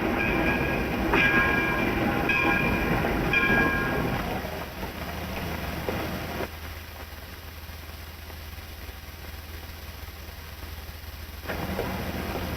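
A train running and pulling away, with a short pitched signal tone sounding about once a second over the rumble. The sound fades after about six seconds, leaving a faint hiss, and a different noise starts near the end.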